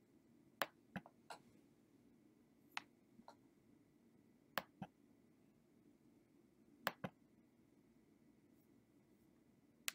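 Near silence: room tone with a faint low hum and a handful of faint, sharp clicks scattered through it, some in close pairs.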